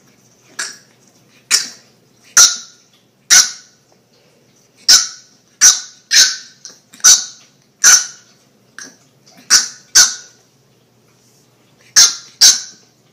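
Bulldog puppy yapping at a cat in play: about fifteen short, high-pitched barks in quick irregular bursts, with two brief pauses.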